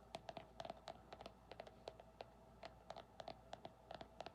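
Light, quick fingertip tapping on an object: irregular clicks, about four or five a second.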